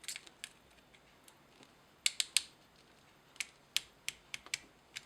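Irregular light clicks and taps of small parts and tools being handled while assembling a chainsaw oil pump, with a quick run of three clicks about two seconds in.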